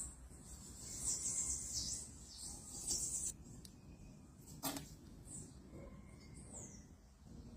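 A small bird giving thin, high-pitched peeping chirps that fall in pitch, several close together in the first three seconds and a few more later. One sharp click comes about halfway through.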